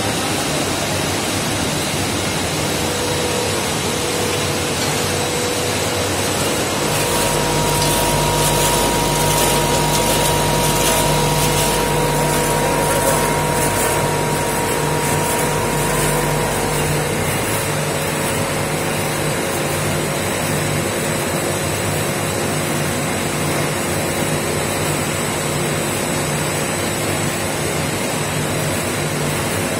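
Baked-snack extrusion line machinery running: a steady loud machine drone with several hum tones, joined by a deeper rumble from about 7 to 17 seconds in.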